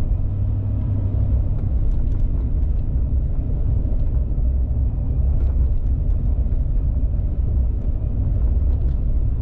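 Car driving on the road: a steady low rumble of engine and road noise, with a few faint light ticks now and then.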